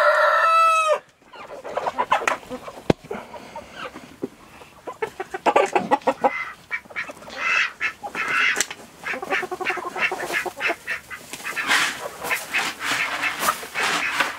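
A mixed flock of chickens and ducks calling while feeding: one drawn-out call about a second long at the start, then a steady scatter of short clucks and quacks.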